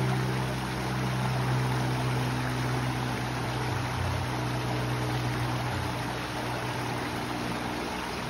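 Water of a shallow rocky river running over stones, with a steady low hum underneath it.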